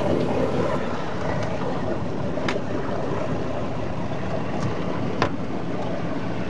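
Steady rush of wind on the microphone and sea noise aboard a yacht, with a few faint clicks.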